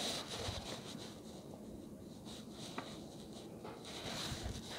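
Faint handling of small metal parts: fingers turning a nut onto a stud of a model locomotive's smokebox, with soft rubbing and a few light clicks.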